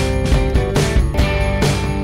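Background music with a regular beat over held tones.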